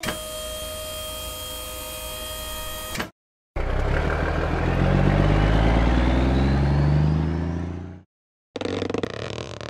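Cartoon sound effects of a dump truck. First a steady mechanical hum as the tipper bed lowers, ending with a click about three seconds in. Then, after a short pause, the truck's engine revs up with rising pitch as it drives away, fading out about eight seconds in. A brief noisy sound follows near the end.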